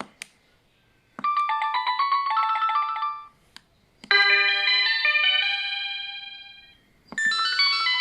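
ZTE T-U110 mobile phone playing short polyphonic ringtone tunes one after another, each starting just after a click, likely a key press. The first tune is a quick run of notes lasting about two seconds. The second sustains and fades out. A third starts near the end.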